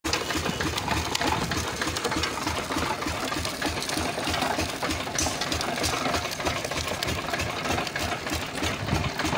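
Sugarcane juice crusher running, its iron rollers turning and crushing cane fed in by hand, with a steady, fast, even mechanical clatter.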